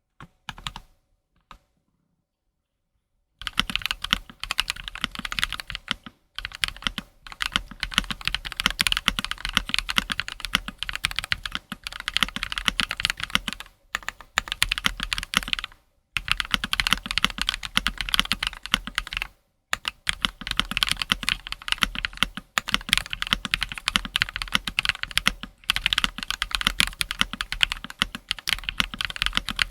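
Fast typing on a mechanical keyboard fitted with NicePBT Type 6 keycaps, 1.45 mm thick dye-sublimated PBT in Cherry profile: a dense clatter of keystrokes. It starts a few seconds in after a couple of faint clicks and breaks off briefly a few times.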